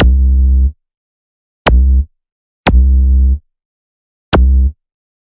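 Electronic music: four short, loud synthesized bass notes, each starting with a sharp click, separated by silent gaps of about one to one and a half seconds.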